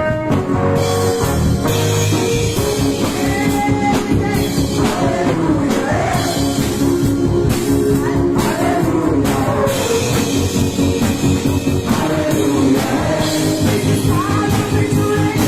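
Rock-style music with singing over drums and guitar.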